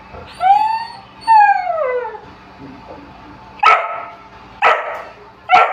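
A dog whining twice in long calls that rise and then fall in pitch, then barking three times about a second apart, impatient for its dinner.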